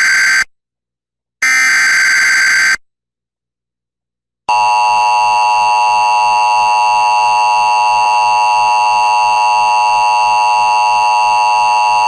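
Emergency Alert System broadcast: the tail of one SAME digital header burst, then after a short gap a second header burst lasting a little over a second. After about two seconds of silence, the steady two-tone EAS attention signal (853 and 960 Hz) starts about four and a half seconds in and holds. The alert heads a National Weather Service severe thunderstorm warning.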